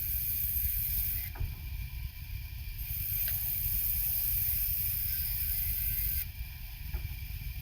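Sawmill saw running with a steady low hum. A high hiss comes and goes as the blade cuts wood: it is there for the first second or so, stops, then returns from about three seconds in until about six seconds in.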